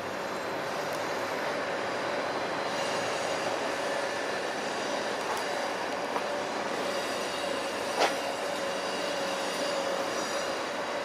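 Train running noise: a steady rumble with a faint held squeal-like tone throughout, and one sharp click about eight seconds in.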